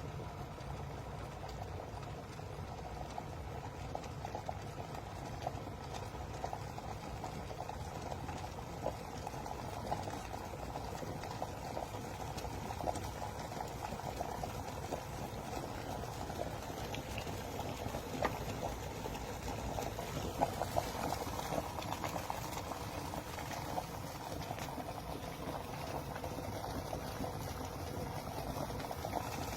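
Hamilton Beach 1-litre glass electric kettle heating water toward the boil: steady bubbling with small crackling pops that slowly grow a little louder.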